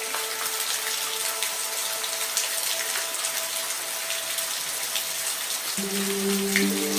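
Steady rain hiss with faint held tones beneath it; a fuller, lower chord of held tones comes in near the end.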